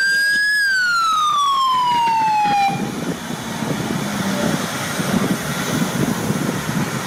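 Fire engine siren: one wail that rises, then falls and cuts off about two and a half seconds in, followed by a steady rumble of the fire engine's motor and road noise as it drives past.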